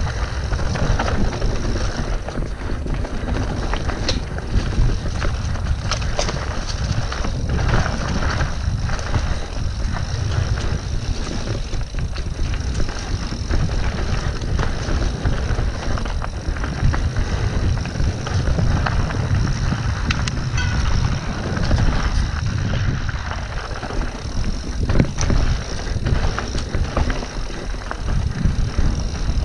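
Mountain bike descending a dirt singletrack: continuous wind rush on the microphone, tyres rolling over dirt and leaf litter, and frequent short clatters and knocks from the bike over bumps and roots.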